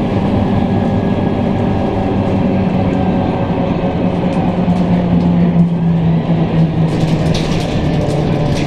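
Cabin sound of a Scania K310UB city bus running: the steady drone and low hum of its rear diesel engine, dipping slightly in pitch about halfway through. Sharp clicks and rattles of interior fittings join in from about seven seconds in.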